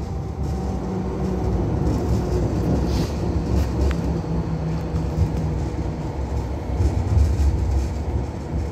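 Hong Kong Light Rail Phase V car heard from inside: a steady low rumble with a faint electrical hum.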